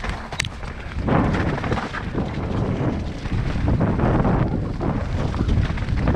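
Wind buffeting the microphone, a loud, uneven low rumble that grows stronger about a second in.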